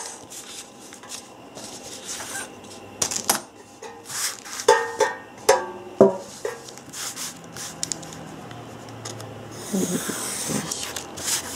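A steel ruler is handled and laid on paper, with light metallic clinks and knocks and a brief ring. About ten seconds in, a craft knife is drawn along the ruler, slicing the paper with a short hiss.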